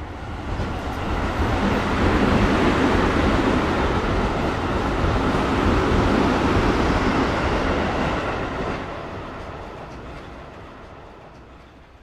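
Metro train passing by: a rumbling rail noise that swells over the first couple of seconds, stays loud for several seconds, then fades steadily as the train moves away.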